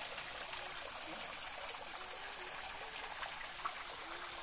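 A small stream of water trickling steadily down rocks into a shallow pool.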